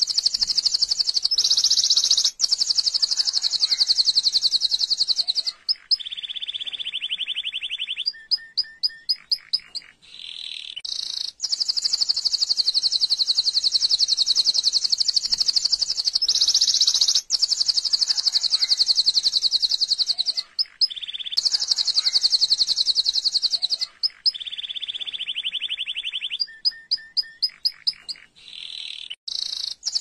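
Domestic canary singing: long, very fast high trills, broken by a lower trill and short runs of separate piping notes, with the same sequence of phrases coming round again in the second half.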